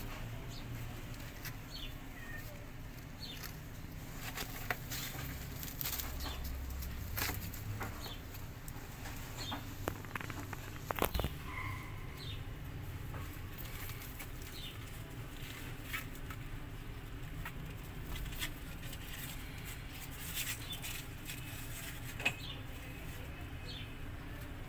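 Kittens scuffling and scratching on cardboard, giving scattered clicks and rustles, with brief high chirps now and then over a low steady hum.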